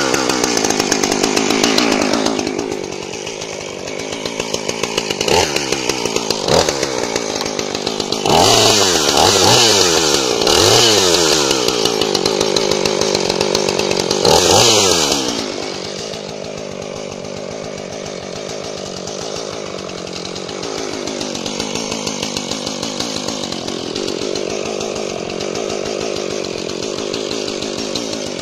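Husqvarna 450e two-stroke chainsaw revved briefly, then idling, then held at high revs from about eight to fifteen seconds in with the chain cutting into a log, the engine note dipping under load several times. It then settles back to a steady idle.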